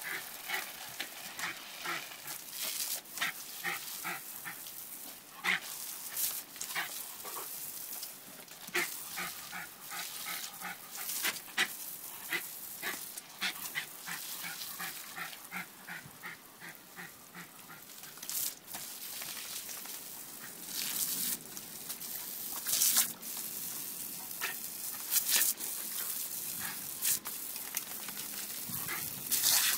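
A small dog barking and yipping in quick runs, several calls a second, mostly in the first half. Under it a garden hose jet hisses and patters on the wet paving.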